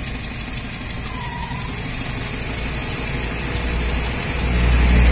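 Chevrolet Spark car engine idling steadily while it circulates water to flush rusty coolant and sludge out of the radiator, with the upper radiator hose off. It grows louder near the end.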